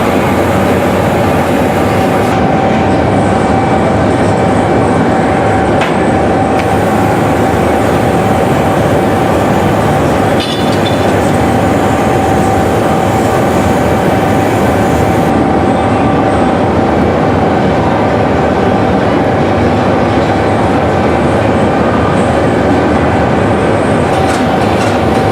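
Loud, steady machine noise with a constant hum running through it, typical of a glass workshop's furnaces and blowers.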